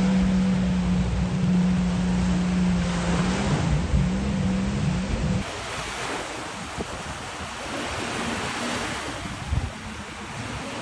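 Motorboat engine running at a steady pitch, wavering up and down just before it cuts off about five seconds in. Then wind and sea waves, with wind noise on the microphone and a single thump near the end.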